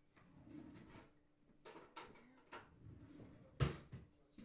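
Boiled sheep head's meat being torn off by hand on a ceramic plate: soft, faint tearing with a few light knocks, a sharper knock about three and a half seconds in.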